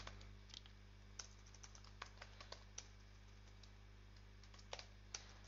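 Faint computer keyboard typing: a few scattered key presses at uneven intervals over a steady low hum.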